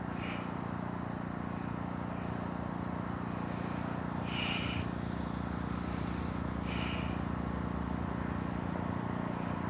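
Steady low mechanical hum over background noise, like a motor or engine running at idle, with faint short higher-pitched sounds about every two seconds.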